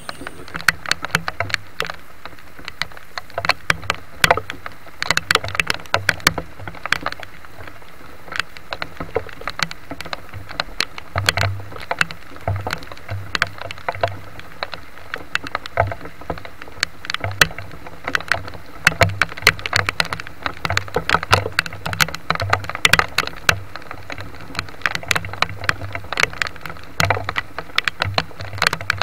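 Heavy rain falling, with many large drops striking a surface close by in dense, irregular taps and soft thuds.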